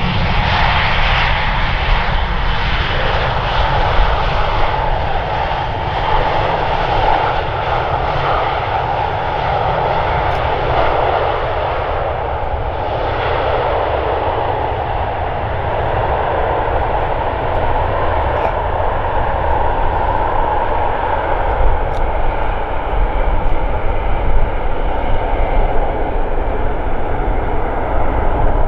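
Airbus A319 airliner's jet engines running as it rolls out along the runway after landing: steady jet noise with a strong band of engine whine, and a low rumble beneath.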